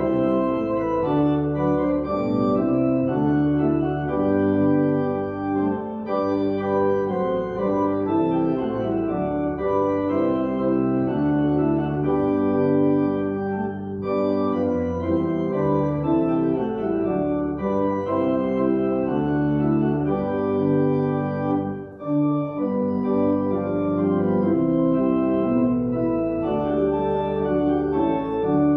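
Church organ playing slow music in held chords that change about every second, with a brief break about 22 seconds in.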